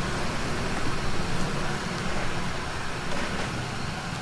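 Steady background din of a busy street-food stall: a low, even hum with faint voices mixed in.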